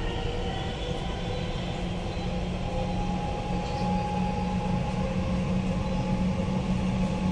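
Dubai Metro train running along an elevated track, heard from inside the car: a steady rumble of wheels on rail with a faint hum, growing slightly louder.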